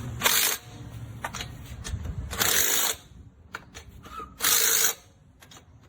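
Avid Power 1/2-inch 20V brushless cordless impact wrench fired in three short bursts of about half a second each, about two seconds apart, working a wheel's lug nuts.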